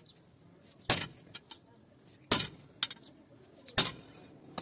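Hammer blows on a rod-handled chisel cutting through an old steel leaf spring laid on an anvil block: three sharp metal strikes about a second and a half apart, each followed by a high ring.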